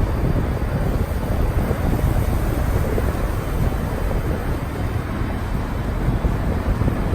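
Wind buffeting the microphone: a steady low rumble that rises and falls unevenly.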